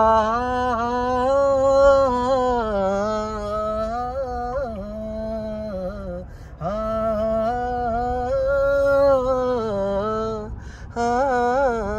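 A man singing a long wordless 'aa' melody with no accompaniment, in three phrases of long held, wavering notes with short breaks about six and ten and a half seconds in. A steady low rumble from the moving car's cabin lies underneath.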